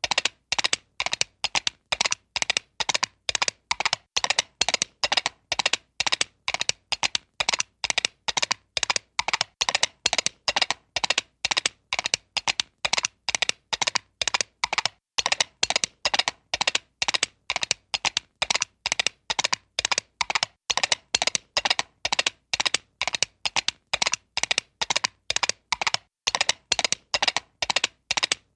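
Cartoon-style horse hooves gallop sound effect: a long, evenly paced run of hollow clip-clop clicks, about three a second.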